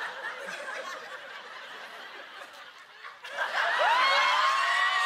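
A small group of people laughing; about three seconds in, louder, high-pitched laughter from several voices breaks out at once.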